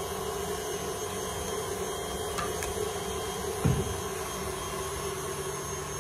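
Electric mixer running steadily, beating egg whites to stiff peaks, with one low thump a little past halfway.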